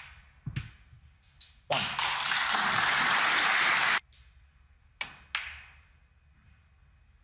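Sharp clicks of snooker balls being struck and knocking together, three in the first second and a half, then about two seconds of crowd applause that cuts off suddenly, followed by two more ball clicks.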